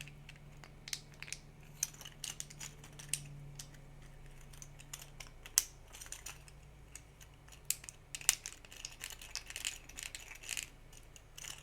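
3D-printed plastic parts of a print-in-place articulated toy clicking and crackling as its jointed legs are worked loose by hand: irregular small clicks with a few sharper snaps, over a faint steady hum.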